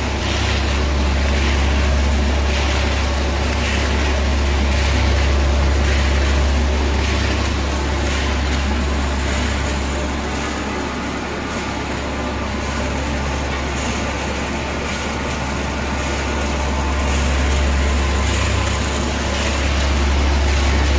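Stainless steel trough-shaped horizontal mixer running, its drive motor giving a strong steady low hum under the rushing rattle of granular material being churned by the agitator. The level sinks a little in the middle and swells again near the end.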